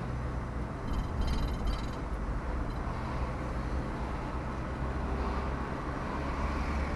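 A vehicle's engine humming steadily with road noise while driving at low speed, heard from inside the cab.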